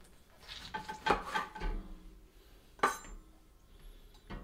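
Chef's knife cutting lemon halves on a wooden cutting board: a few sharp knocks of the blade against the board, the loudest about a second in with a brief metallic ring, another near three seconds in.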